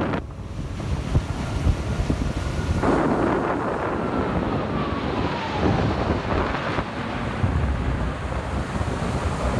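Blue Angels jets passing overhead in formation: a jet roar that swells about three seconds in, with a whine that falls in pitch as they go by. Heavy wind noise on the microphone runs underneath.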